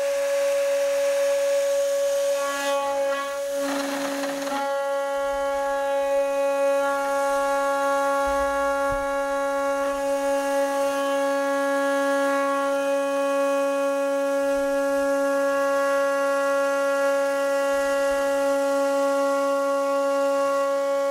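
CNC milling machine's end mill cutting aluminium plate: a steady whining tone with overtones, which turns rougher for a moment about three to four seconds in.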